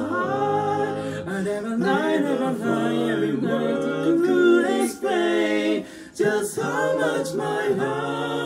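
Male barbershop quartet singing a cappella in four-part close harmony, several voices holding chords together, with a brief break about six seconds in.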